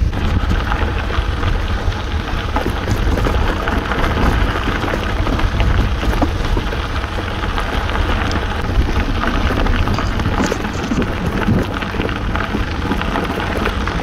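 Wind buffeting the microphone of a moving bicycle, a steady deep rumble, mixed with a dense crackle of bicycle tyres rolling over an unpaved path.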